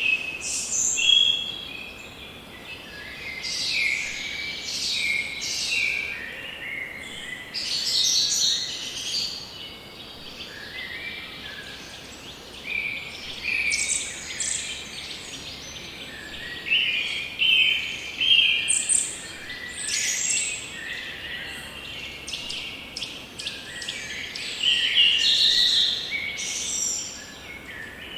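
Several forest birds singing and chirping, phrases overlapping and coming and going, over a faint steady background hiss.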